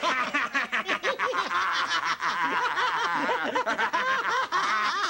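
Two cartoon red birds laughing at once in rapid, high-pitched snickers that overlap: mocking laughter.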